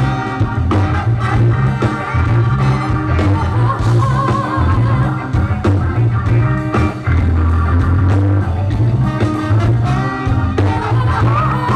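Live band playing an upbeat blues-rock groove, with a steady bass line and drums and a voice singing over it.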